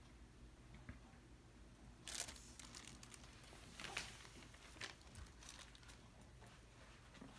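Near silence with a few faint crinkling rustles from handling the paint-covered canvases as they are tilted: one about two seconds in, another near four seconds and a smaller one just after.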